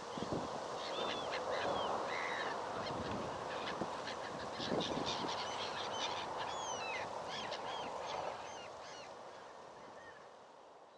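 A flock of birds calling, many short, sweeping calls overlapping, over the steady rush of a shallow river flowing across gravel. Everything fades out over the last few seconds.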